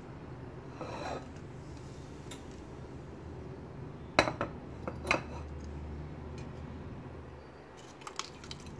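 Metal clinking against a stainless-steel pressure cooker pan, with two sharp knocks about halfway through, over a steady low hum. Near the end come several smaller clinks as a steel bowl of sliced onions is tipped into the pan.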